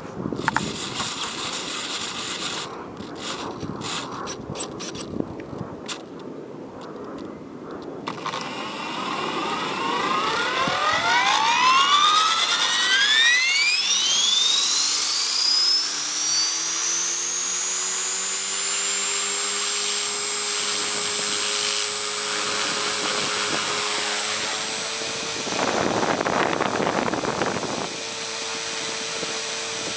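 Align T-Rex 450 Sport electric RC helicopter spooling up, heard from its onboard camera. After a few clicks, the brushless motor's whine rises steeply over several seconds, then settles into a steady high whine with the rotor hum beneath it. A surge of rushing air near the end comes as it lifts off.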